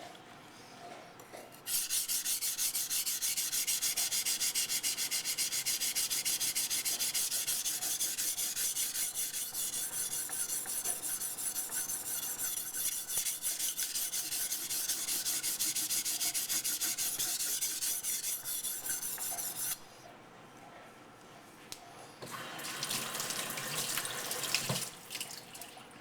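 Steel blade of a Becker BK9 knife being stroked back and forth on a wet waterstone, a continuous gritty scraping. The scraping stops about 20 seconds in, then resumes for a few seconds near the end with a single click.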